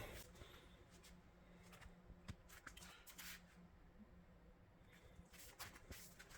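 Near silence with a few faint rustles and soft clicks of something being handled.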